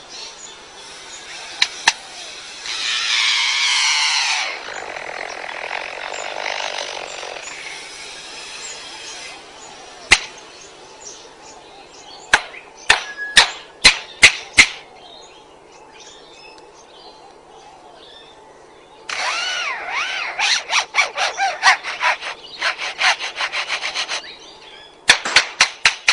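A superb lyrebird mimicking man-made sounds. It gives a chainsaw-like rasping whine for a few seconds, then single camera-shutter clicks. Near the end come rapid runs of shutter clicks like a camera with a motor drive.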